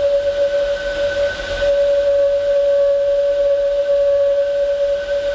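Steam locomotive whistle on La Trochita's narrow-gauge engine No. 101, blowing one long, steady blast at a single pitch: the signal that the train is about to depart.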